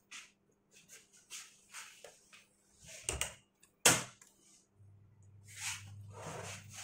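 Hands handling an open plastic Fuji CR cassette: short scratchy rubbing and sliding sounds, a sharp plastic click about four seconds in, then two longer scraping swishes near the end over a faint low hum.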